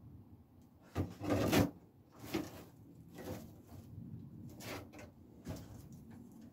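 Objects being handled and moved about: a sharp knock about a second in, then a half-second sliding scrape, the loudest sound here, followed by several shorter knocks and rustles.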